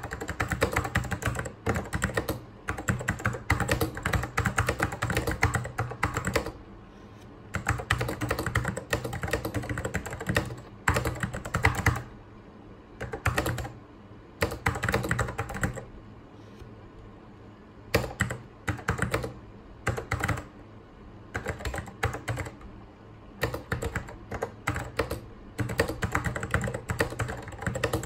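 Typing on a mechanical Apple keyboard: rapid runs of key clicks broken every few seconds by short pauses of a second or two.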